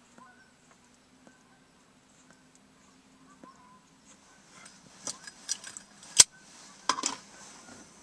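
Zippo lighter being handled: a few small metallic clicks, then a sharp metal clink a little after six seconds in and a short rasping burst just after, as it is flipped open and struck to light a pipe.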